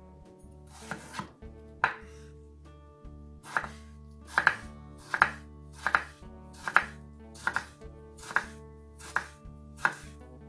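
Kitchen knife slicing a tomato on a wooden cutting board: about a dozen sharp strokes as the blade cuts through and knocks the board, settling after a pause into a steady rhythm of a little more than one a second. Quiet background music underneath.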